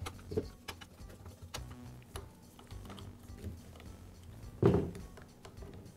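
Hand screwdriver loosening and backing out small screws from a string trimmer's metal drive shaft coupler: faint scattered clicks and scrapes of the bit in the screw heads, with one louder knock near the end.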